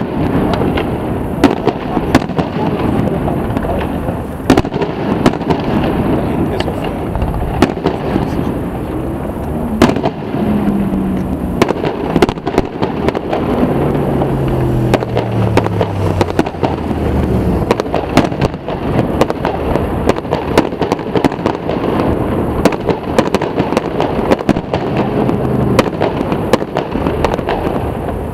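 Fireworks display: aerial shells launching and bursting with sharp bangs scattered irregularly throughout, over a steady background murmur.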